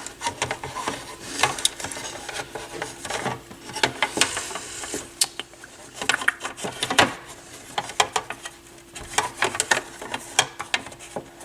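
Irregular clicks, taps and light rubbing of a Dual CS 530 turntable's plastic and metal parts being handled and fitted back together, over a faint steady hum.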